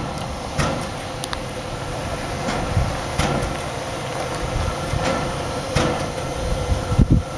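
Nickel Plate 765, a 2-8-4 Berkshire steam locomotive, moving slowly with soft exhaust chuffs about once a second over a steady background hum. Wind rumbles on the microphone.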